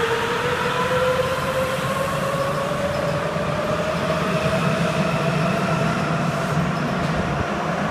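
Sapporo Subway 8000 series train pulling out of the station: its traction motors whine, rising steadily in pitch as it accelerates, over the steady low rumble of the rubber-tyred cars rolling past.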